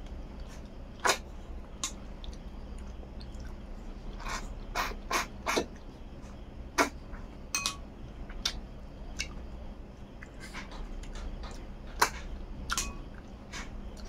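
Close mouth sounds of eating snail curry and rice by hand: sharp wet smacks and sucking clicks, about a dozen at uneven intervals, the loudest about a second in and near twelve seconds. A steady low hum runs underneath.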